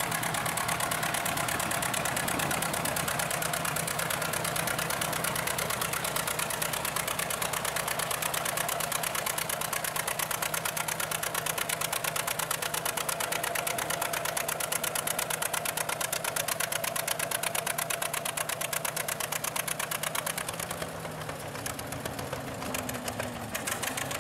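John Deere D's two-cylinder engine running under load as it drags a weight-transfer sled, with a fast, even exhaust beat. About twenty seconds in the beat grows quieter.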